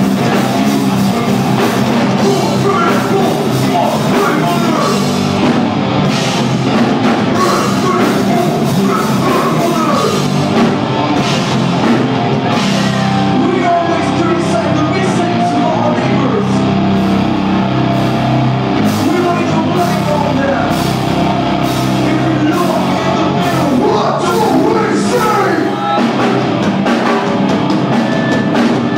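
A live rock band playing loudly: electric guitar and a drum kit with cymbal hits, with a singer's vocals over them.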